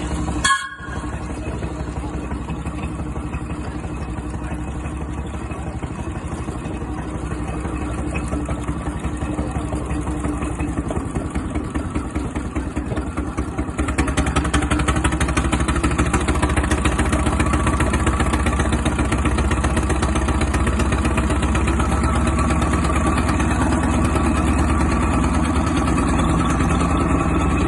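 A small engine running steadily, growing louder about halfway through, after a brief click near the start.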